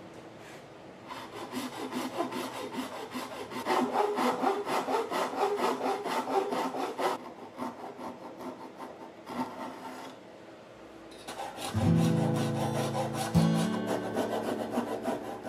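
Japanese hand saw cutting a kerf into a laminated wooden workpiece clamped in a vise, in quick back-and-forth strokes with short pauses. Acoustic guitar music comes in about eleven seconds in.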